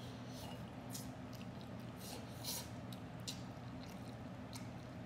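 Noodles being slurped and chewed off chopsticks: about half a dozen short wet slurps, the loudest about halfway through, over a steady low hum.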